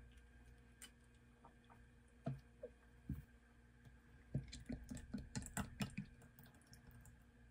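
Thick drinkable blueberry yogurt glugging out of a plastic bottle into a glass mug: a quick run of soft glugs about halfway through, after a few light knocks of bottles on the counter.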